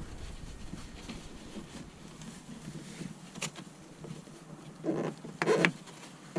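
Hands working a kayak seat bottom pad and its plastic fasteners into the seat frame: light rustling and scraping, a sharp click about three and a half seconds in, and louder rustles and scrapes near the end as a fastener is lined up with its hole.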